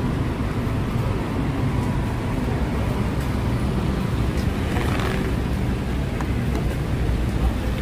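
Steady rumble of city road traffic on wet streets in the rain, with a brief swell of hiss about five seconds in.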